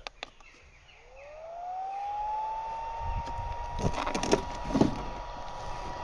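A click, then a small electric motor spins up. Its whine rises in pitch over about a second and a half and settles into a steady tone, with a rising hiss under it. Knocks from handling come around the middle.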